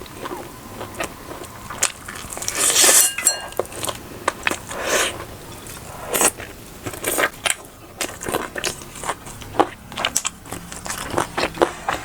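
Close-miked eating: a person biting and chewing chicken biryani, with many short wet mouth clicks and smacks and a louder crunch about three seconds in.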